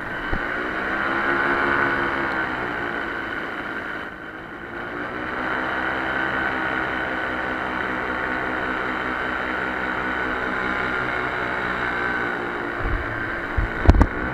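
A small engine running steadily, its pitch drifting up and down slightly, with a dip in level about four seconds in. A few low thumps sound near the end.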